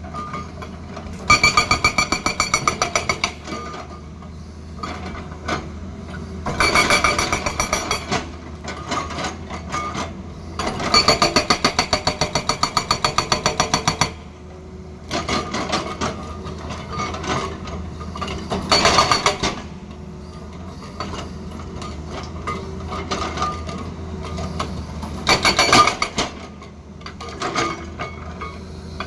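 Tata Hitachi excavator's hydraulic rock breaker hammering hard stone in repeated runs of rapid blows, each run lasting one to three seconds. The excavator's engine hums steadily underneath.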